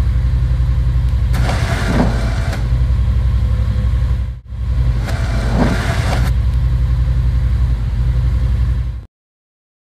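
Yamaha Wolverine X4 side-by-side's twin-cylinder engine idling with a steady, even low pulse. Twice the engine noise swells briefly, about a second and a half in and again about five seconds in. The sound cuts off suddenly just after nine seconds.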